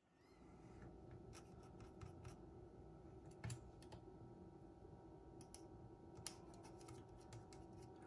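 Near silence with faint, scattered small clicks and taps of parts and tools being handled. The sharpest click comes about three and a half seconds in.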